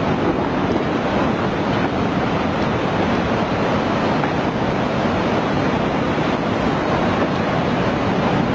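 Steady rush of turbulent floodwater surging across the land, its breaking waves making a dense, unbroken noise.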